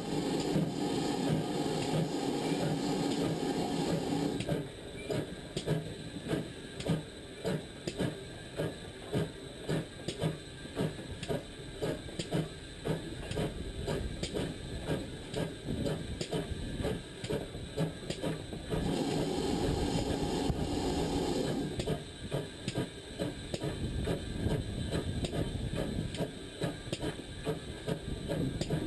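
GWR pannier tank steam locomotive pulling away, its exhaust beating in a regular rhythm of about two to three beats a second. A dense steady rush covers the beats for the first four seconds or so, and again briefly about twenty seconds in.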